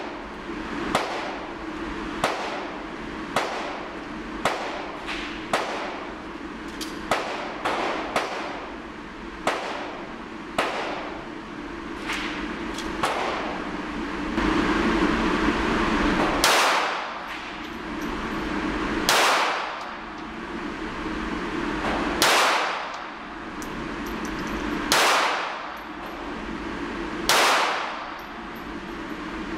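Five shots from a Diamondback DB380 .380 ACP pocket pistol in an indoor range, each ringing off the walls, spaced about three seconds apart in the second half. Before them comes a run of short sharp clicks about a second apart.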